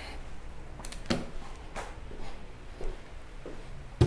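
A few faint knocks and rustles of someone moving about a small room, then a sharp thump near the end as the camera is picked up and carried off.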